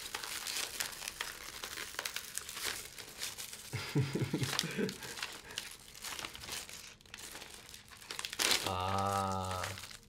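Plastic mailer bag crinkling and crackling as it is torn open and handled, with a short wordless sound from a man's voice near the end.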